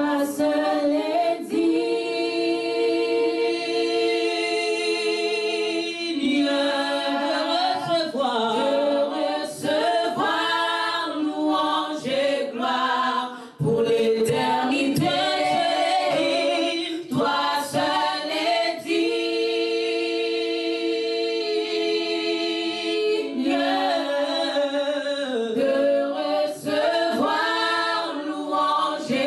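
Worship team singing a slow worship chorus a cappella in several voices, with no instruments. Long held notes alternate with moving phrases.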